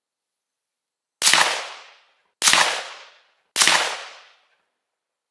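Three shots from a Black Creek MRX Bison rifle in 5.56 NATO, evenly spaced a little over a second apart, each followed by a short fading echo.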